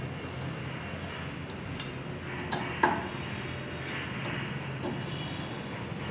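A few light metallic clicks and one sharp knock about three seconds in, from hand tools working on a Bosch VE distributor pump, over a steady low hum.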